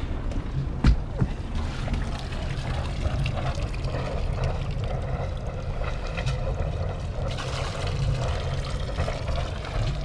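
Volvo Penta TMD22 four-cylinder marine diesel running steadily on a test run after a new heat exchanger and turbo were fitted, with water splashing and trickling from the wet exhaust outlet. A single sharp knock about a second in.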